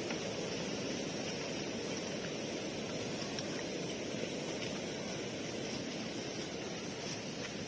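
Steady rush of a swollen, flood-muddied river flowing below and beside a footbridge.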